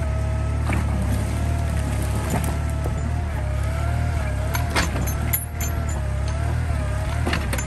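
Garden tractor engine running steadily as the tractor drives slowly through the woods, with a few sharp cracks of twigs and brush snapping under it.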